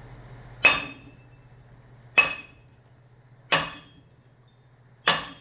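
Four hammer blows about a second and a half apart, each with a short metallic ring, tapping the piston and its new seals on a John Deere hydraulic cylinder rod into the barrel.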